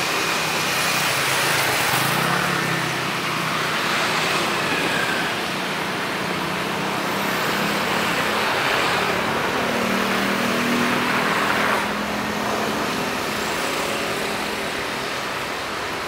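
Steady roar of a jet airliner's engines during its landing rollout, typical of reverse thrust, heard across the airfield; the roar drops off about twelve seconds in as the aircraft slows.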